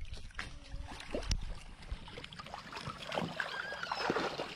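Otters moving and splashing in shallow water, with scattered short wet knocks and a few short high chirps about three to four seconds in.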